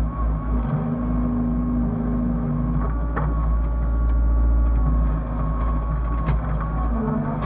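Hyundai excavator's diesel engine running steadily, with a steady high whine over it and a couple of sharp knocks about three and six seconds in.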